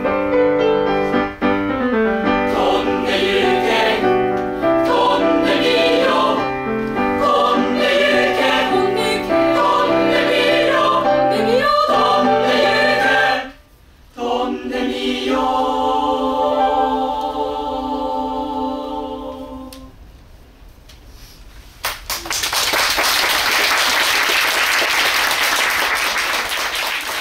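A mixed high-school choir singing the closing phrases of a song, breaking off briefly about halfway through, then holding a long final chord that fades away. Audience applause breaks out near the end.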